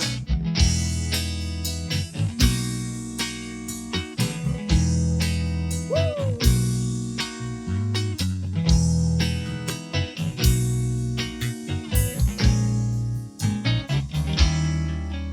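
Instrumental band music: guitar over bass and regular drum hits, with one note sliding up and falling back about six seconds in.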